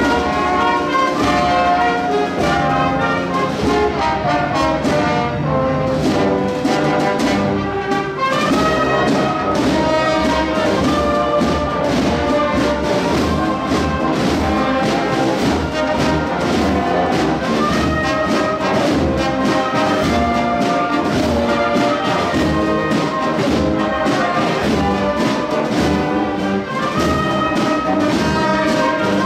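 A town wind band playing a march, with brass carrying held melodic lines over a steady percussion beat.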